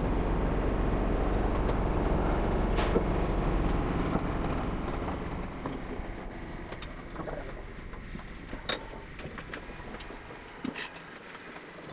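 Matterson electric screw lifting jacks running with a steady mechanical hum, which dies away over a few seconds near the middle as they stop. After that come a few scattered metallic knocks and clinks.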